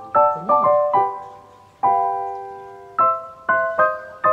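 Gentle background piano music: a slow melody of single struck notes that ring and fade, with a longer held chord about two seconds in.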